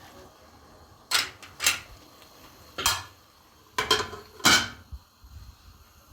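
Kitchenware clattering: about five sharp clinks and knocks of dishes or utensils, spread over a few seconds.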